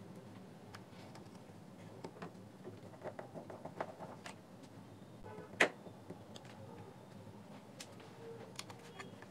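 Faint scattered clicks and ticks of a small precision screwdriver working the screws and parts of a plastic earbud charging case back together, with one sharper click a little past halfway.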